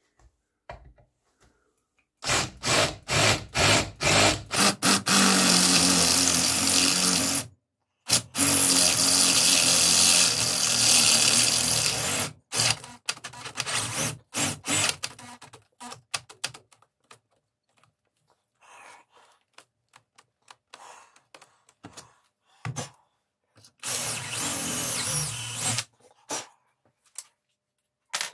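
A handheld power tool switched on in a quick series of short blips, then run steadily for a few seconds at a time, twice, with a shorter run near the end and light knocks of handling in between.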